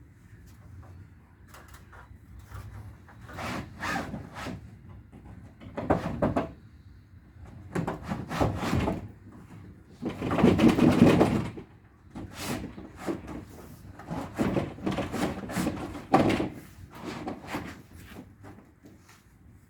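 Irregular scraping, rustling and knocking of building materials being handled, in short bursts with the longest and loudest about ten seconds in.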